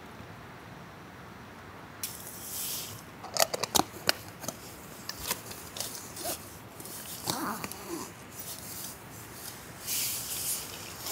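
Camping gear being handled up close: rustling of fabric with a quick cluster of sharp clicks and taps a few seconds in, then more scattered clicks and another rustle near the end.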